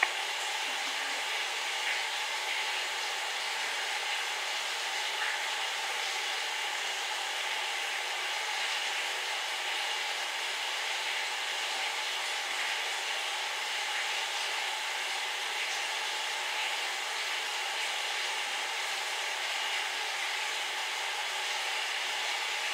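Steady rushing background noise, like a fan or air conditioner running, with a few faint crunches of cornstarch chunks being chewed.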